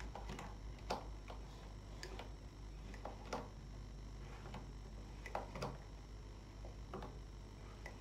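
Faint, irregular clicks of knitting machine needles being moved by hand one at a time in a single-bed needle bed, as yarn is laid over each needle's latch and the needle drawn back to form long stitches.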